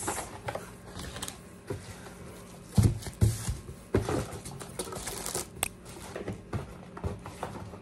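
Hands rummaging through a cardboard box of products and magazines: paper and packaging rustling with scattered clicks and knocks, and a couple of dull thumps about three seconds in.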